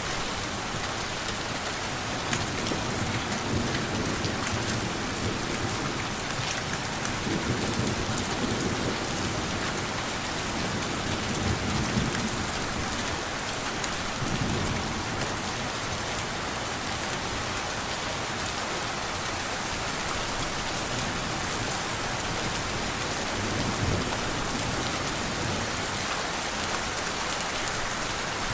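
Steady rain falling, with low rumbles of thunder swelling up several times.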